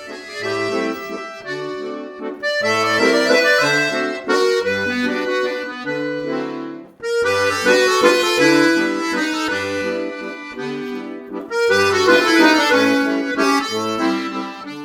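Instrumental music: held chords over a bass line that steps out a regular beat, with a brief break about seven seconds in.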